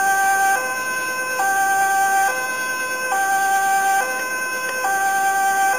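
Two-tone German-style 'Martinshorn' siren from a Graupner 2351 model sound module, alternating steadily between a lower and a higher tone a little under once a second.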